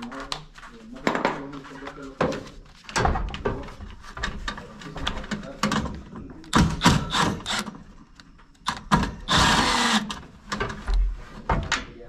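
Knocks, clicks and rattles of metal parts and tools being handled while an electric heater is removed from a fan coil unit, with a short burst from a cordless drill-driver, about a second long, a little after nine seconds in, as a screw is backed out.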